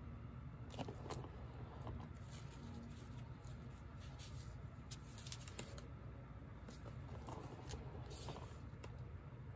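Faint handling noises, light rustles and small clicks in scattered clusters, over a low steady hum.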